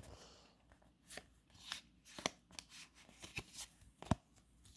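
Pokémon trading cards being handled and flipped through by hand: a scatter of faint short clicks and brief rustles.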